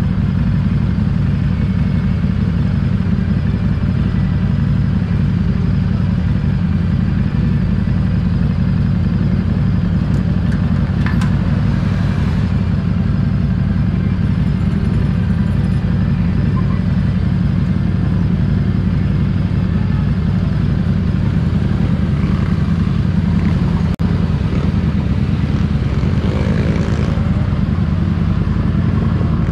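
Harley-Davidson Street 750's V-twin engine running steadily under way, a continuous low rumble.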